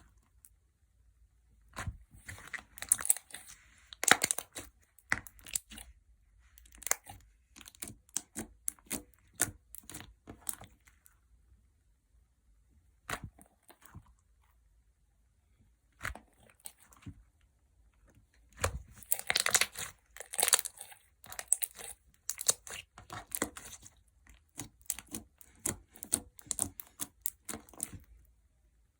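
Clear gel slime being squeezed and stretched by hand, giving wet, crackling pops and squelches in irregular bursts, with quiet pauses of a second or two between them.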